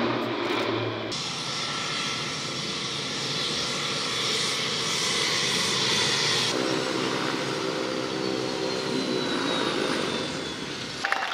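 Pilatus PC-9M single-engine turboprop aircraft, engines running with a steady drone, first from the formation in flight, then from the aircraft taxiing on the ground. The sound changes abruptly about a second in and again just past halfway as the footage cuts.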